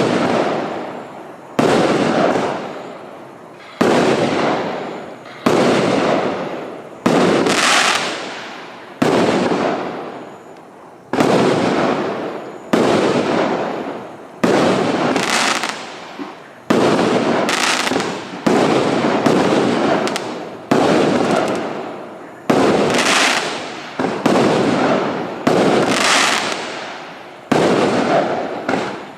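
A multi-shot consumer fireworks battery (cake) firing shot after shot at a steady pace, about one every two seconds. Each shot is a sharp bang that trails off into a fading rush of noise over a second or so.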